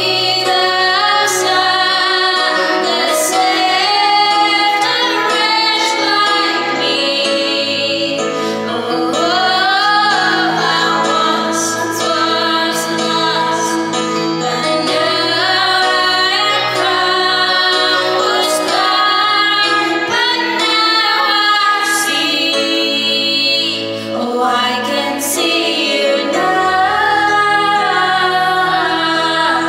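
Three women singing a worship song together into microphones, with instrumental accompaniment and a steady beat.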